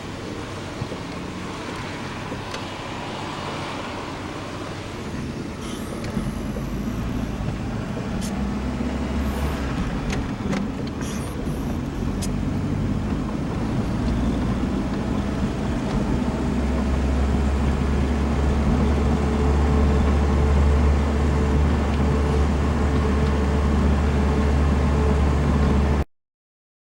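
Car driving, its engine and road noise a steady low rumble that grows louder as it goes, then cuts off suddenly near the end.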